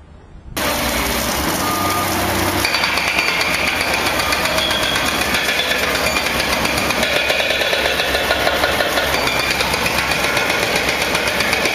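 Heavy machinery running loudly with a rapid knocking. It starts suddenly about half a second in.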